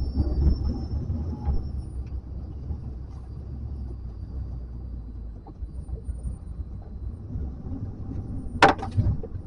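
Wind buffeting the microphone as a low rumble, strongest for the first couple of seconds and then easing. Near the end come a couple of sharp knocks.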